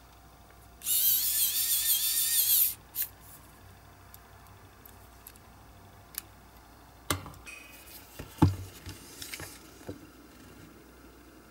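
Cordless electric precision screwdriver whirring for about two seconds, its pitch wavering as it turns a tiny screw in a diecast model's metal base. Later come a few sharp knocks and clicks of tools and parts being handled, the loudest about eight seconds in.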